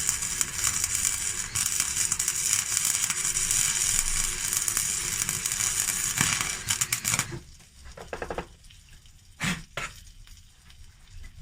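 Electric welding arc crackling steadily as a weld bead is run. It cuts off after about seven seconds.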